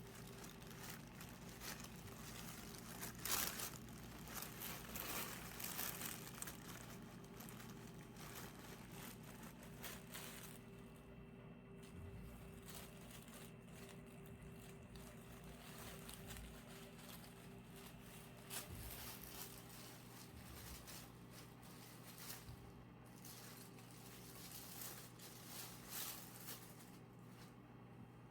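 Faint rustling and crinkling, busiest in the first several seconds and again near the end, over a steady low hum.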